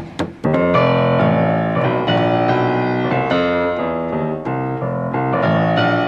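Grand piano played: a couple of sharp knocks right at the start, then from about half a second in, full sustained chords that change every half second or so, with a melody moving above them.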